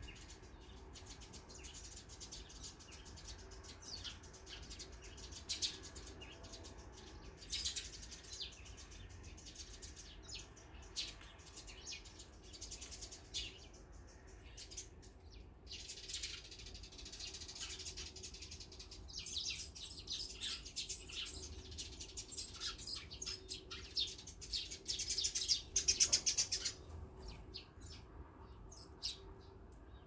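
A flock of Eurasian tree sparrows chirping continually in quick, overlapping calls. The chirping is busiest and loudest a few seconds before the end.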